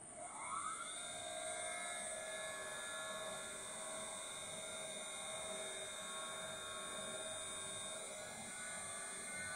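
CNC router spindle on a variable-frequency drive spinning up, its whine rising in pitch over about the first second, then running at steady speed with a steady multi-tone whine.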